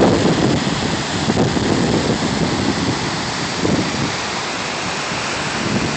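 The Great Falls of the Potomac River, a waterfall and whitewater rapids rushing in a steady, dense wash of noise with irregular low swells.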